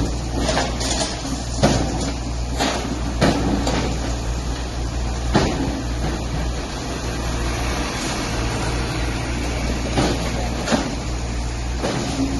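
Hydraulic excavator running steadily, with irregular sharp knocks and crashes as its bucket strikes and breaks the concrete frame of a building.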